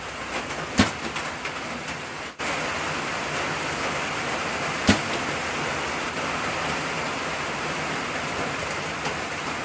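Steady rain, louder after a brief break about two seconds in, with the string of a 65-pound Hoyt Satori recurve bow released twice: a sharp single snap about a second in and another about five seconds in.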